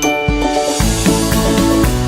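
Background music with a steady beat; a rising hiss-like swell about half a second in leads into a fuller passage.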